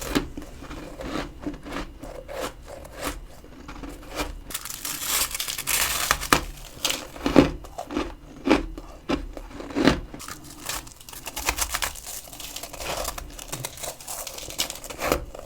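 Freezer frost crunching as it is chewed close to the microphone: an irregular run of crisp crackles, with louder crunches in the middle.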